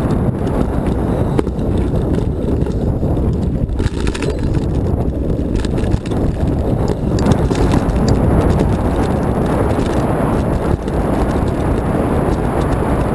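Mountain bike rolling fast over a rough dirt track, heard from a camera on the handlebars. A steady rush of wind on the microphone and tyre noise, broken by frequent knocks and rattles as the bike goes over bumps.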